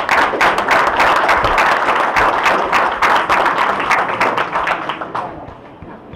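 Audience applauding in a banquet hall, dense clapping that starts at once, then thins and fades out about five seconds in.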